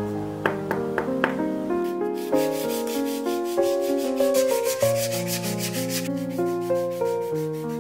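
3M sanding sponge rubbed briskly back and forth over the dried clay bowl of a goblet, a quick even run of rasping strokes from about two seconds in until about six seconds, over soft piano music.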